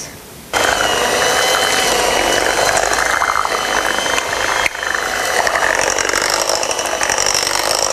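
Electric beater running steadily through cake batter with a motor whine, starting about half a second in, with a brief dip near the middle.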